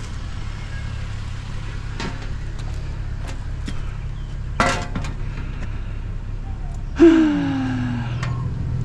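Vehicle engine idling with a steady low hum. Over it come a few sharp clicks and knocks, the loudest a little past halfway, and a short squeal that falls in pitch about two-thirds of the way through.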